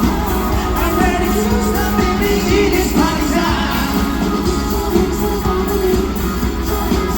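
Live amplified rock band playing with a lead singer during a sound check.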